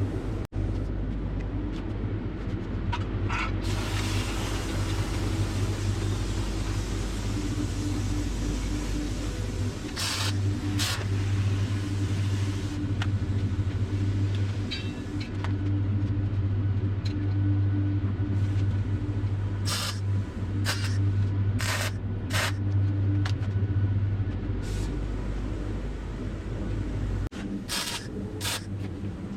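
A steady low machine hum with about a dozen short, sharp noises, several in close pairs around the middle and near the end.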